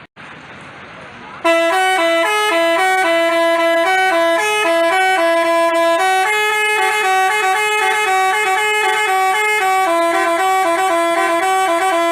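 Basuri telolet bus horn playing a quick melody, several horn trumpets sounding notes together in stepping chords. It starts about a second and a half in, after a short stretch of lower background noise.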